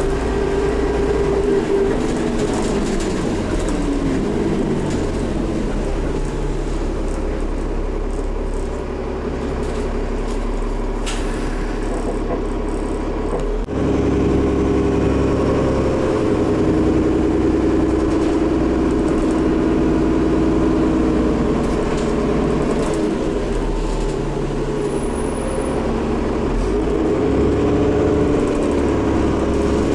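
Dennis Trident double-decker bus running, with a whine that rises and falls in pitch with engine speed: the odd turbocharger sound. The sound shifts abruptly about halfway through.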